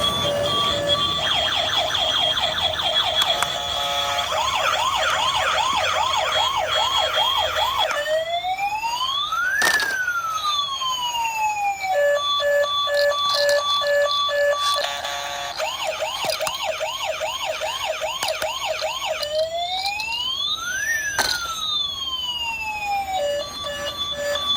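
Electronic toy siren sounds cycling through their patterns: a pulsing beep, then a fast warbling wail, then a slow wail that rises and falls. The cycle runs twice.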